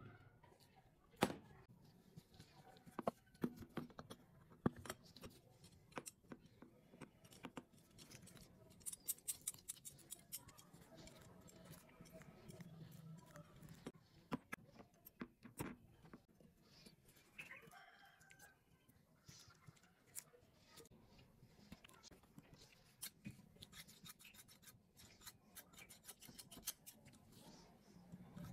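Faint, scattered clicks and light taps of steel scissor blades being handled and fitted together at the pivot.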